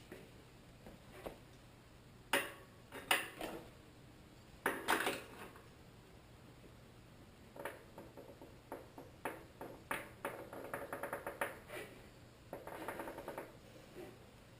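Metal clinks and clicks of a threaded bottom-bracket bearing press tool being tightened by hand to press BB30 bearings into the frame: a few louder knocks in the first few seconds, then a run of quick small clicks.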